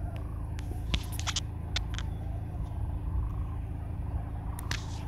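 Steady low rumble with a faint hum in it, like distant traffic, broken by a handful of short, sharp high sounds in the first two seconds and once more near the end.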